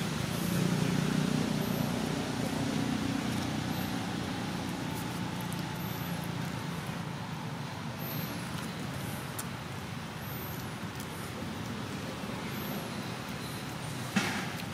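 Steady outdoor background noise: a low rumble of road traffic, strongest in the first few seconds and then easing, with faint high-pitched chirps every second or two. A single sharp click sounds near the end.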